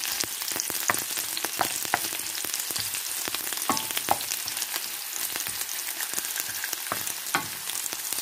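Sliced onions sizzling steadily in hot cooking oil in a pan. A spatula stirring them clacks and scrapes against the pan every so often.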